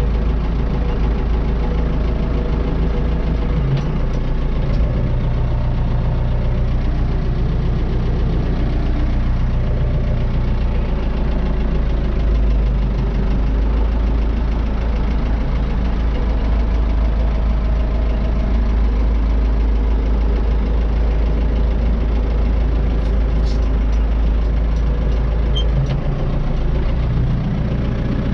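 Ford 7600 tractor's four-cylinder diesel engine running steadily at a low, set rev in first gear, creeping forward, heard from inside the cab.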